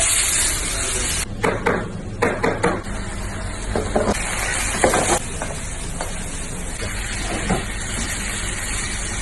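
Food sizzling in a frying pan, with a run of knocks and scrapes from a utensil about a second in and a few more later.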